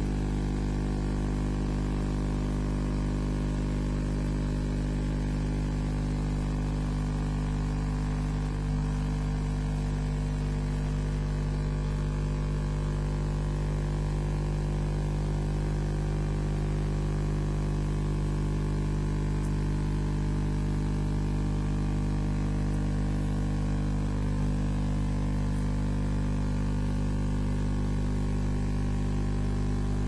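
Steady electrical mains hum with a constant static hiss over it, unchanging throughout; no bird calls or other sounds stand out.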